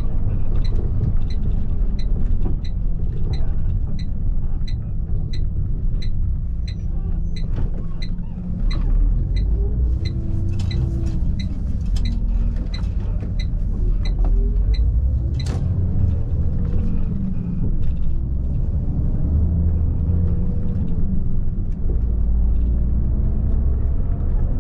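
Cab of a 2005 Volvo B12B coach under way, its 12-litre six-cylinder turbo diesel running with a deep steady rumble. For roughly the first fifteen seconds a turn indicator ticks about twice a second. The engine's pitch then rises and falls as the coach pulls through the turn, with one sharp click near the middle.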